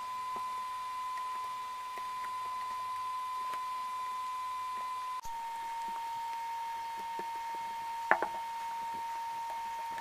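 A steady high-pitched beep-like tone, dropping slightly in pitch about five seconds in, with faint handling clicks. About eight seconds in comes a brief quick run of clicks as a plastic cable tie is ratcheted tight around a stack of magnet blocks.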